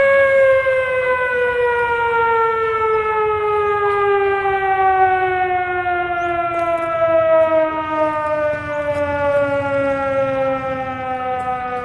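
Siren winding down: one long wailing tone that slides slowly and steadily lower in pitch, growing a little fainter near the end.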